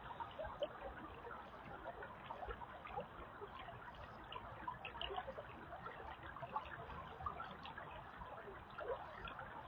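Shallow creek water trickling and babbling over stones, a steady bubbling with many small splashy plinks.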